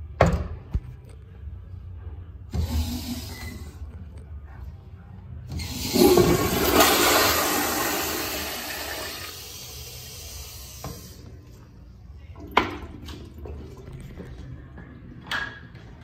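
American Standard Afwall flushometer toilet flushing: a loud rush of water starting about five seconds in, strongest at once and tapering away over the next five seconds. A few sharp knocks come before and after it.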